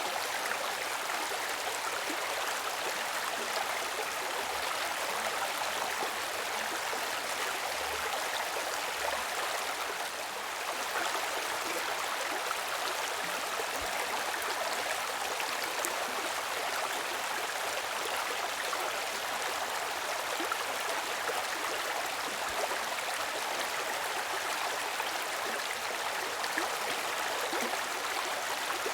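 Stream water flowing and rushing steadily, with a slight dip in level about ten seconds in.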